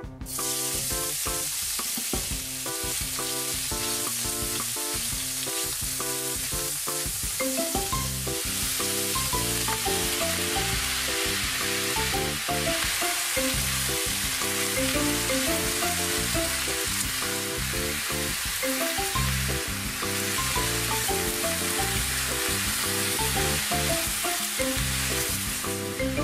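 Ground meat hitting hot sesame oil in a wok and sizzling, starting suddenly, then frying steadily as cabbage and green peppers are stir-fried and tossed with tongs. Background music plays underneath.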